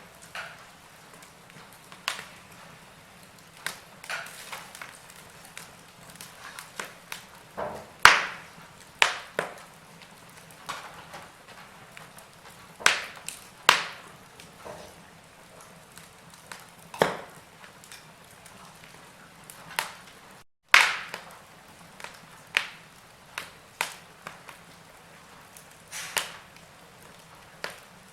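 Wood fire crackling: irregular sharp pops and snaps over a faint steady hiss, the loudest pops about 8 seconds in and just after a brief cut to silence about two-thirds of the way through.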